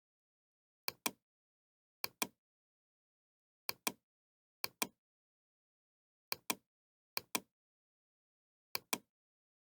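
Sharp clicks in pairs, like a button pressed and released, seven pairs at uneven gaps of about a second, with dead silence between.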